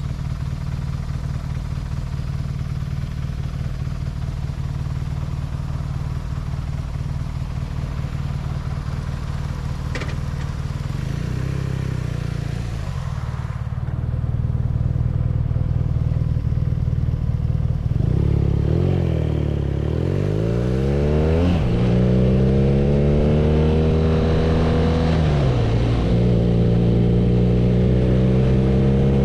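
BMW R nineT's 1170 cc boxer twin running steadily at low revs, then about two-thirds in revving up, dropping back and climbing again several times as the bike accelerates through the gears.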